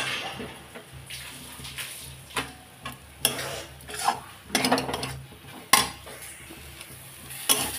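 Metal spatula scraping and knocking against a metal kadhai while stirring greens that have been cooked down dry, in about seven irregular strokes.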